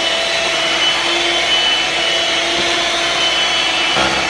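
Electric hand mixer running steadily, its beaters whipping boiled potatoes into mashed potatoes in a metal pot.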